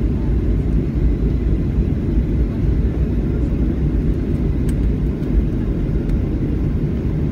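Steady low rumble of an airliner taxiing after landing, heard from inside the passenger cabin.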